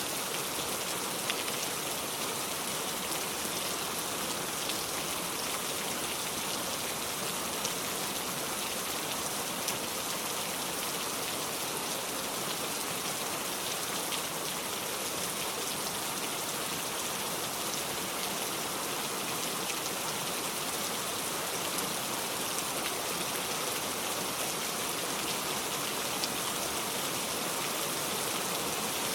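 Steady rain: an even hiss of rainfall with scattered drops pattering on a surface.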